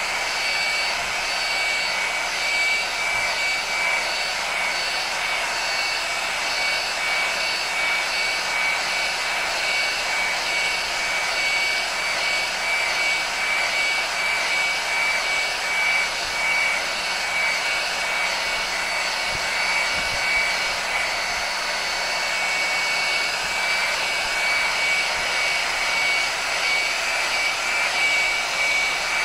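Electric heat gun running steadily: a rush of blown air with a high, steady fan whine, as it heats and shrinks heat-shrink tubing.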